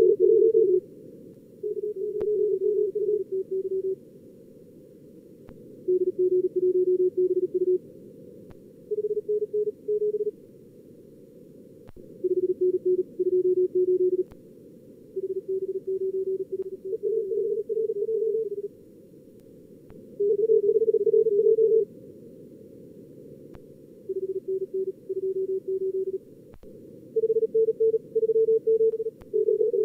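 Morse code (CW) at about 38 words per minute, keyed in short exchanges that switch between two pitches, over a narrow band of receiver hiss. These are simulated contest callers and exchanges from a logging program's practice mode, worked on two radios in alternation.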